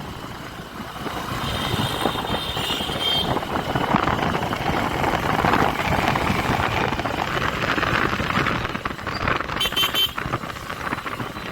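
Steady road and wind noise from a Honda SP125 motorcycle riding in traffic. A faint high tone comes in about one and a half seconds in and lasts a second or two, and a brief high-pitched pulsing sound comes near the end.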